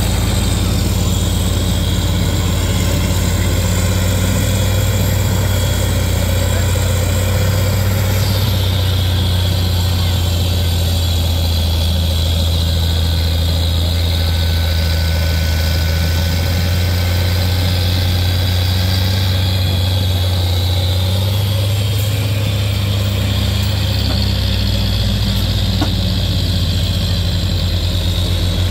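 Diesel engines of a Zetor tractor and an LKT 81 forestry skidder running hard under heavy load as the two machines pull against each other in a chained tug-of-war, a loud steady drone with a slight shift in pitch partway through.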